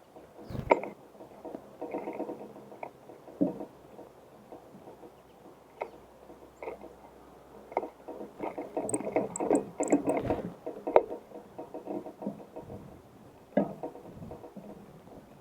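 Small songbirds at a bird feeder: irregular taps and scrabbling on the feeder, with a few short, high chirps about nine to ten seconds in.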